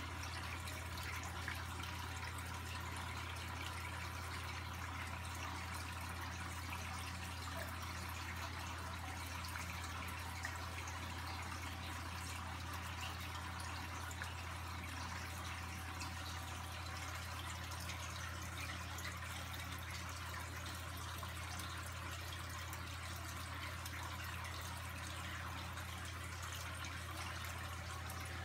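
Aquarium equipment running steadily: a low pump hum under a constant trickle and splash of water circulating in the tank.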